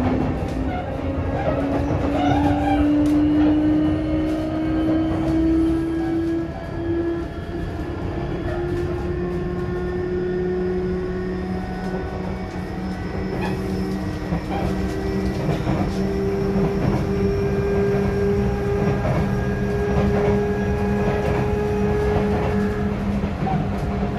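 Sotetsu 8000 series electric train's Hitachi IGBT inverter and traction motors whining as the train accelerates, the pitch rising slowly throughout. Under it runs the rumble of wheels on rail, with scattered light clicks.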